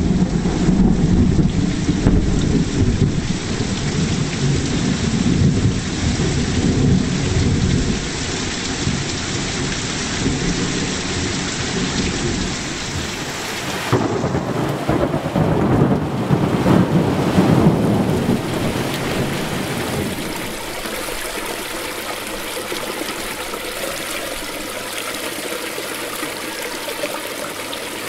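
Thunderstorm: steady heavy rain with rolling thunder rumbles that swell in the first few seconds and again around the middle, then ease after about two-thirds of the way to a lighter steady rush.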